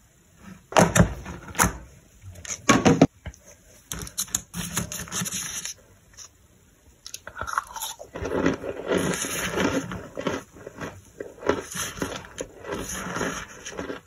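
A clear plastic takeaway tub's lid being pried off, with loud plastic crackles and snaps in the first three seconds. From about seven seconds in, a plastic spoon scrapes and crunches through toasted starch chunks and powder.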